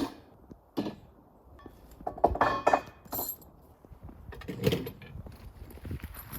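A handful of separate knocks and metallic clinks, as of gear being handled, the loudest a rattling, briefly ringing clink about two seconds in; no engine running.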